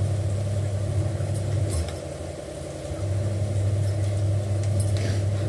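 A steady low mechanical hum, like a motor running, that cuts out about two seconds in and starts again a second later, with a few faint clicks on top.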